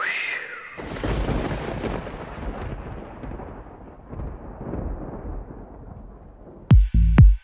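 Logo-reveal sound effect: a brief swoosh, then about a second in a deep boom that slowly fades away over several seconds. Near the end an electronic dance track starts with heavy kick drums.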